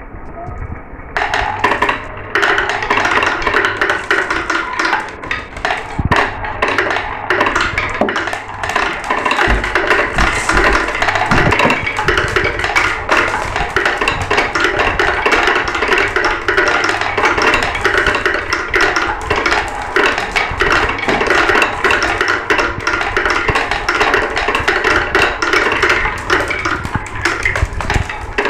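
Many glass marbles rolling and clattering down a marble run, a dense, rapid stream of clicks and rattles that thickens about a second in.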